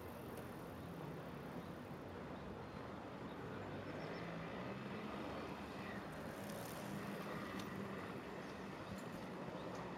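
Steady outdoor ambience: a low hum of passing road traffic over a steady hiss of river water rushing through the rapids below.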